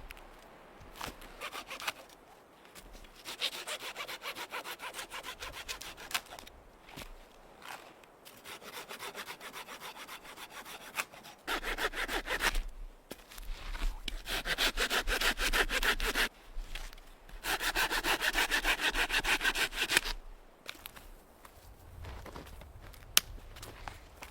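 Hand saw cutting through wood in several runs of quick back-and-forth strokes with short pauses. It is loudest in the later runs and stops a few seconds before the end, followed by a sharp click.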